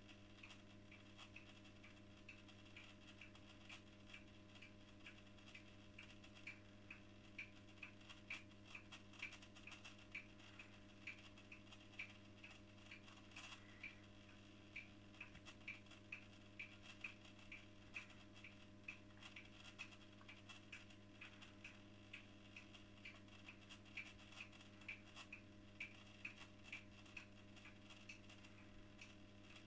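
Faint sound from a 1968 Scharpf Elektronica 2920 washing machine during a 95 °C boil wash: a low steady electrical hum with light, irregular ticking, about two or three ticks a second.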